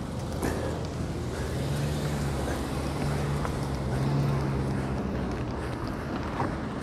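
City traffic from a moving bicycle: a motor vehicle's engine hums steadily close by for a few seconds in the middle, over steady rushing wind on the camera microphone.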